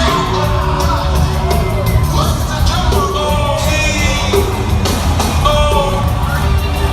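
Loud rock music with singing and shouted yells over a steady beat.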